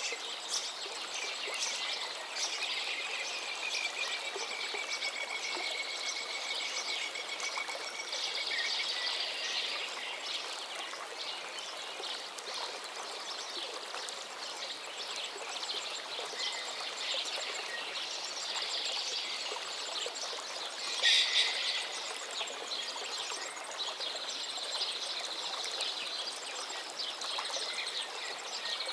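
Many birds calling and chirping over a steady background hiss, with a drawn-out whistle in the first third and one louder call about two-thirds of the way through.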